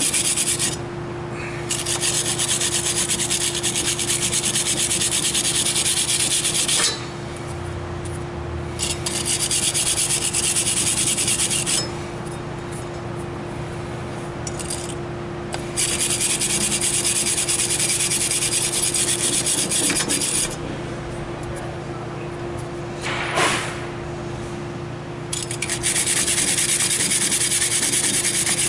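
Hand-held steel wire brush scrubbing rust off a 1996 Jeep Grand Cherokee's wheel hub in rapid back-and-forth strokes. It comes in spells of a few seconds with short pauses between.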